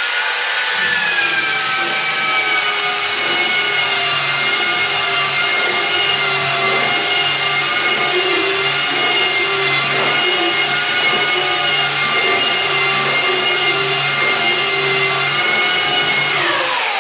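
Handheld belt sander running on wooden floorboards with a steady, high-pitched whine, grinding down a raised board edge. Its motor pitch rises as it spins up at the start, and near the end it falls away as the sander is switched off.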